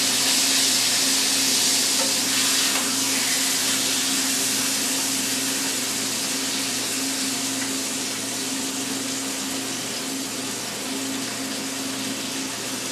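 Food sizzling steadily in a hot frying pan, a little louder in the first few seconds and then settling, over a steady low hum.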